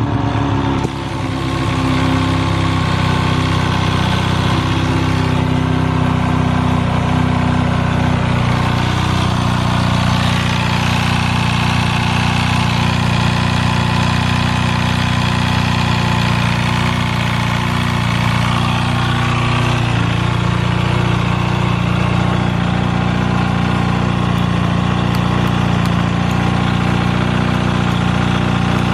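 Kawasaki Balius ZR250A's 250 cc inline-four engine idling steadily, settling from a rev in the first second. The seller notes an abnormal noise (異音) at idle on this engine.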